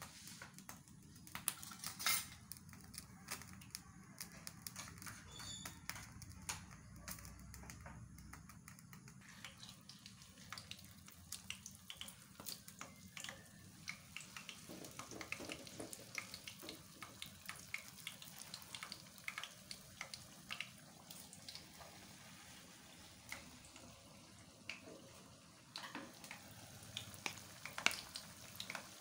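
Vegetable fritter (bakwan) batter frying in hot oil in a pan: a steady sizzle with frequent sharp crackles and pops.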